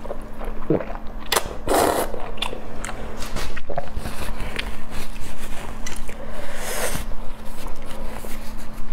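Close-miked eating sounds: noodles slurped in two loud gushes in the first two seconds, then chewing, biting and wet mouth clicks, with another slurp-like gush near the seven-second mark.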